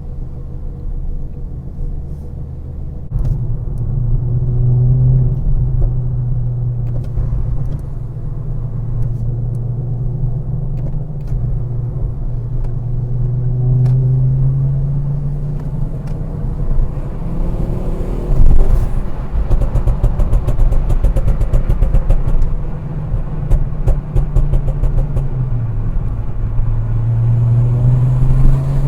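Turbocharged car engine pulling through the gears, the revs climbing and dropping back at each shift several times. About two-thirds through, at the loudest moment, the throttle comes off and a rapid fluttering chatter follows for a few seconds: turbo flutter.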